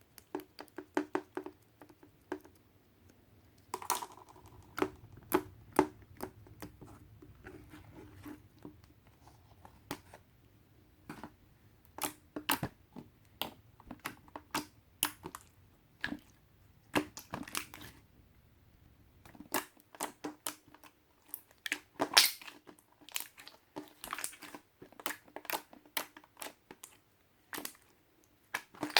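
Slime being squished and pressed by hand, giving a stream of irregular sharp clicks and pops as air pockets in it burst.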